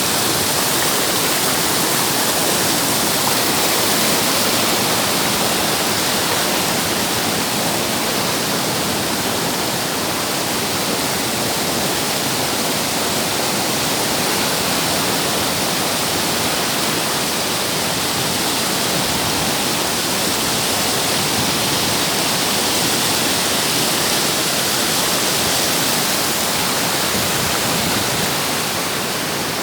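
Steady, loud rush of flowing water, unbroken throughout.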